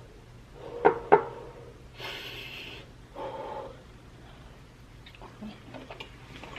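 A person breathing hard against the burn of very spicy food: two sharp, loud bursts of breath about a quarter second apart, then a long hissing breath and a shorter one.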